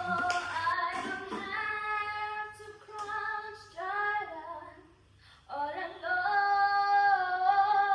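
A woman singing long, held notes that slide between pitches, with little or no backing. There is a brief pause about five seconds in before another long held phrase.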